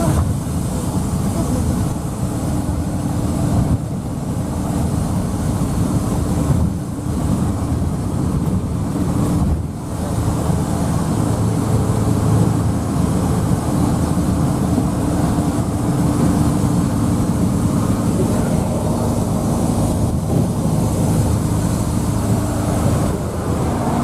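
Steady engine and road noise of a vehicle travelling at speed, with a low constant drone underneath.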